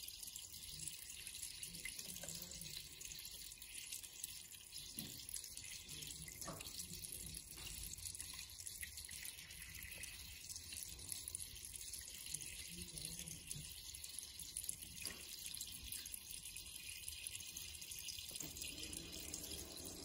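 Steady trickling splash of water from an aquarium hang-on-back filter's outflow falling into the tank, with a few faint taps.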